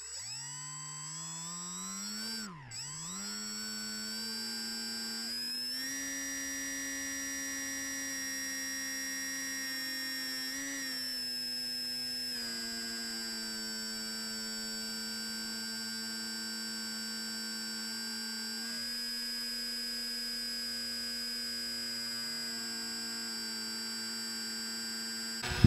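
Brushless electric motor and 7x5 propeller of an RC airboat, heard close from the boat's deck: a steady whine with a thin high-pitched tone above it. The pitch swings up and down in the first few seconds as the throttle changes, then holds almost constant with a few brief small dips.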